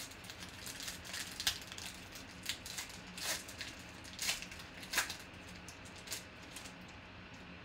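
Foil wrapper of a 2020 Panini Legacy football card pack crinkling and tearing as it is pulled open by hand: a run of sharp, uneven crackles, loudest about one and a half, three and five seconds in.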